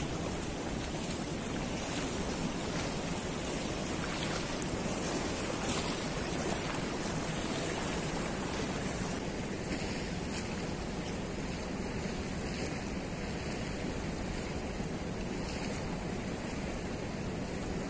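Fast, turbulent river water rushing below a barrage's gates: a steady noise of moving water.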